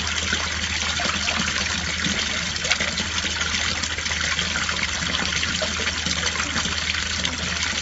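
Water pouring steadily over the edge of a garden fountain and splashing into the basin below.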